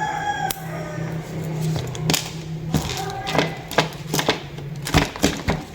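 Hands handling small objects and packaging: a string of sharp clicks and taps, irregular, mostly in the second half. A short pitched voice-like sound opens it, and a steady low hum runs underneath.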